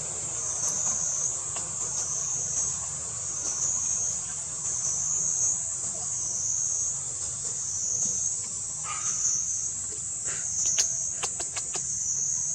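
Forest insects buzzing in a high, continuous chorus that swells and fades about every second and a half. A few brief sharp clicks come in the second half.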